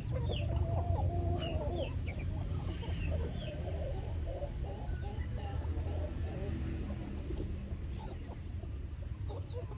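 Flock of chickens clucking as they feed, over a steady low rumble. From about three seconds in, a high chirp repeats quickly, about three a second, for some five seconds.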